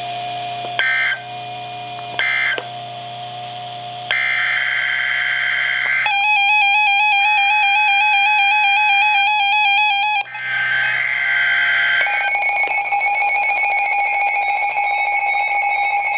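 Emergency Alert System signalling tones: two short buzzy data bursts, then a longer data burst about four seconds in, followed by a warbling electronic alert tone. Another data burst comes about ten seconds in, then a steady electronic alert tone runs to the end. The short bursts are the end-of-message code of one warning; the longer bursts and tones begin the next.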